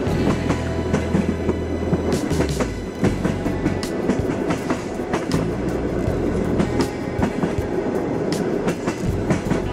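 Passenger train running along the track: a steady rumble with the wheels clicking over the rail joints again and again.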